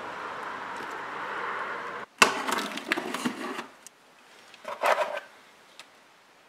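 A steady hiss of background noise, then, after an abrupt cut, a cardboard box being opened by hand: its flaps and tape crackle and rustle loudly for about a second and a half, with a shorter rustle of cardboard a couple of seconds later.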